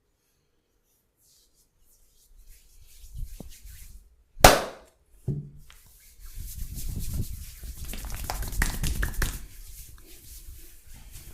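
Hands at work in a barber's upper-body massage: silent at first, then rustling, one loud sharp crack about four and a half seconds in with a softer click just after, then several seconds of hands rubbing and patting on skin.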